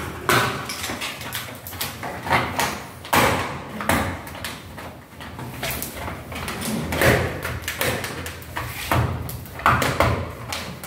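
Plastic diffuser cover being pressed by hand into an aluminium LED strip profile: irregular clicks and short rubbing scrapes as it is pushed into the channel.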